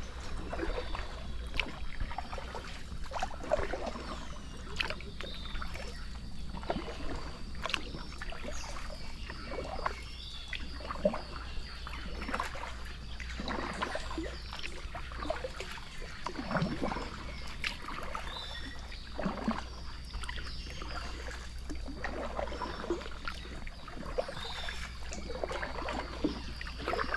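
A small boat being paddled on a river: irregular paddle splashes and water sounds every second or so over a steady low hum.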